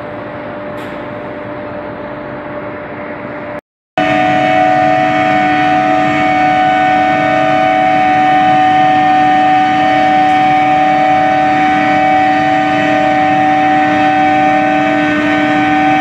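Medium-frequency induction billet heating furnace running: a steady electrical hum with held tones. After a short break about four seconds in it becomes a much louder, steady multi-tone whine, heard close to the induction coils while they heat the steel billets red-hot.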